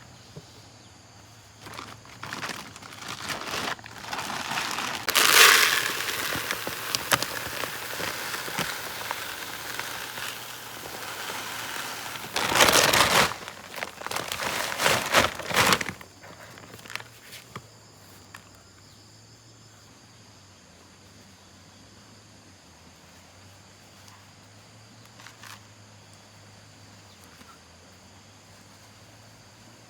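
Rustling and crackling with many small clicks, like something dry or plastic being handled or brushed through. It runs for about fourteen seconds, loudest around five seconds in and again from about thirteen to sixteen seconds, then stops.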